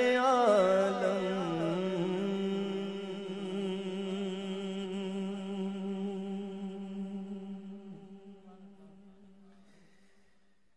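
A man's voice closing a naat with a long held note: a short wavering run, then one steady tone that slowly fades away over the last few seconds.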